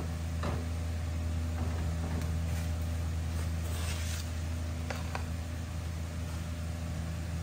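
Cooking oil heating in a wok over a gas burner, with a few faint crackles, under a steady low hum.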